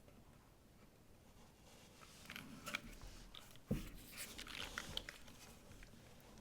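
Scattered, irregular clicks and light scraping from a mechanical keyboard, with one low thump about three and a half seconds in.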